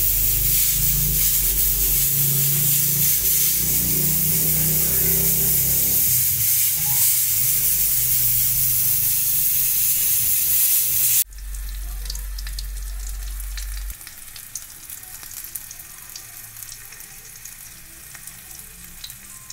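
Doves frying in oil in a pan: a loud, steady sizzle that drops suddenly about eleven seconds in to a quieter sizzle dotted with small crackles and pops.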